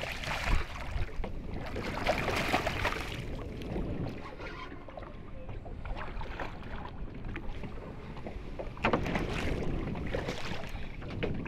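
Hooked dorado splashing and thrashing at the water's surface as it is fought on rod and line, in bursts during the first few seconds and again about nine seconds in, over a steady rush of wind and water.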